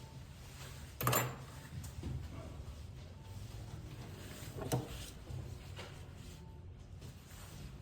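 Small knocks and clicks of tools and phone parts being handled on a repair bench: a sharp knock about a second in, another about three and a half seconds later, and lighter clicks between.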